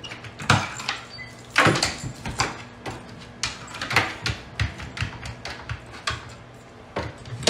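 Irregular knocks and clatters from a hinged cabinet panel being handled while a dog moves about inside the cabinet, over a faint low steady hum.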